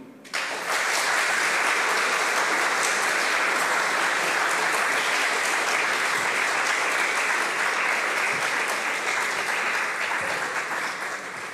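Audience applauding: steady, dense clapping that starts abruptly and thins out near the end.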